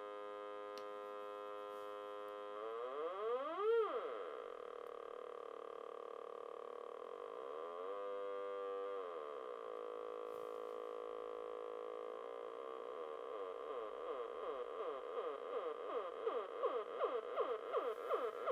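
MFOS Noise Toaster DIY analog synthesizer droning a buzzy, pitched tone as its knobs are turned. About four seconds in the pitch sweeps quickly up and back down. From about twelve seconds it turns into a fast, repeating wobble that grows louder toward the end.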